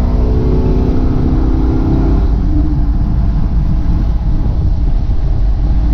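A Jeep driving on the road, its engine tone easing off about two seconds in and leaving a steady low rumble of road noise.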